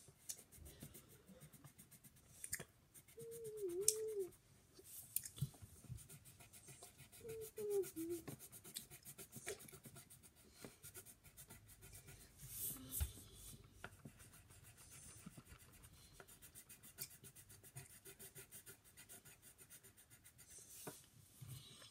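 Faint, quick scratching strokes of colouring on paper, with a child briefly humming twice, a few seconds in and again about seven seconds in.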